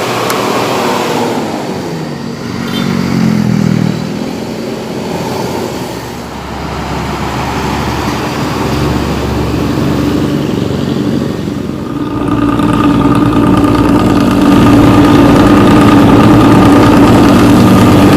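Bus diesel engine with a rumbling 'ngorok' (snoring) exhaust, its pitch sweeping as it revs about two to four seconds in. From about twelve seconds in it settles into a steady, louder run, loudest near the end.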